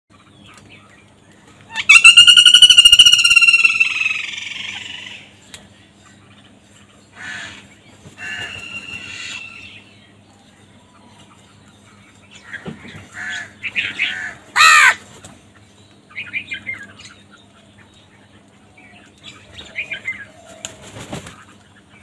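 House crows cawing: one loud, drawn-out caw about two seconds in, then scattered shorter caws, with a flutter of wings near the end.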